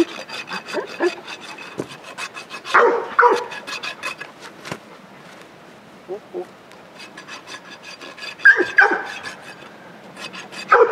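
Hoof-trimming tools scraping and clicking against a Haflinger foal's hoof as the hoof is shortened, in many short strokes. A dog barks a few times, loudest about three seconds in and again near the end.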